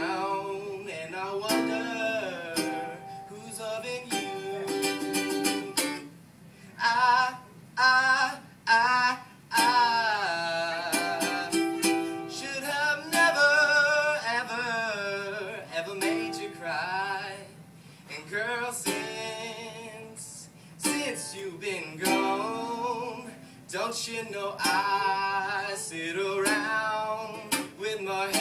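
A young man singing while strumming a ukulele, his voice in phrases with short breaks between them.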